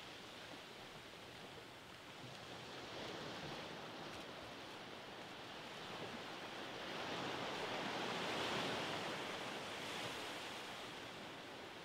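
Soft ocean waves breaking and washing up a sandy beach, a steady hiss of surf that swells louder past the middle, peaking about two thirds of the way through, then ebbing.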